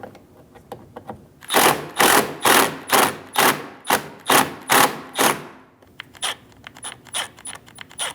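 Ratchet driver with a T25 Torx bit loosening a screw. It gives about nine long clicking strokes about half a second apart, then quicker, lighter clicking from about six seconds in.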